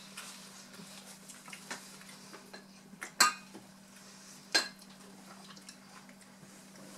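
Knife and fork clinking and scraping on a dinner plate, with small scattered clicks and two sharper clinks, one a little past three seconds and one about four and a half seconds in. A faint steady hum sits underneath.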